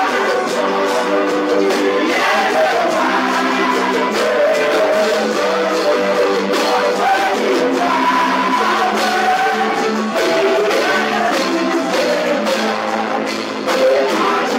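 A small group of worship singers singing a gospel song into microphones, with instrumental accompaniment, amplified through a sound system.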